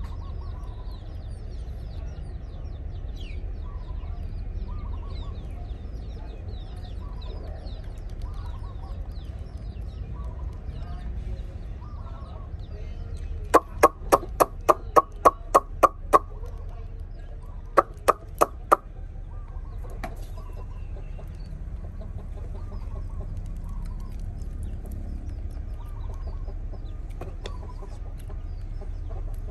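A bird calling: a quick run of about ten loud, sharp calls, about four a second, then four more after a short pause. Softer chirps are scattered over a steady low background hiss.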